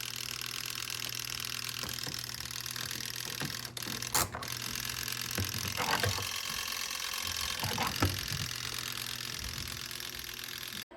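Compact twin-tub portable washing machine running: a steady motor hum and hiss, with a few short knocks or rattles about four, six and eight seconds in.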